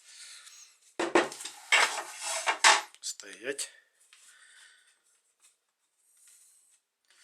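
Tools and utensils clattering as they are handled and set down on a work surface: a dense run of knocks and rattles for about two seconds, followed by faint rustling.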